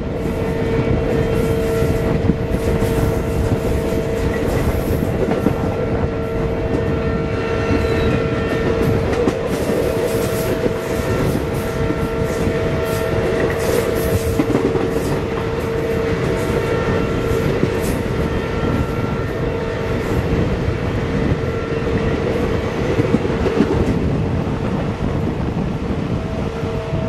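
Double-stack container train running past close alongside on the adjacent track, heard from a moving passenger train: a continuous rumble of steel wheels on rails with clicks over the rail joints and a steady humming tone throughout.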